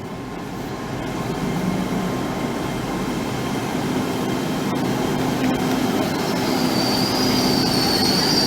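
Train approaching along the platform, its rumble growing steadily louder. A high-pitched wheel squeal sets in about six seconds in.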